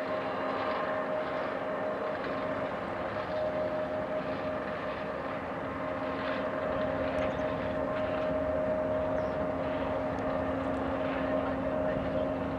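Airliner jet engines running at taxi power: a steady drone with a constant low hum and a higher steady whine.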